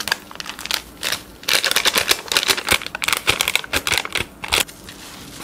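Foil seasoning sachets for instant cup noodles being torn open and squeezed out over the cups, crinkling and crackling in quick clicks. The crackling is busiest in the middle and softens near the end.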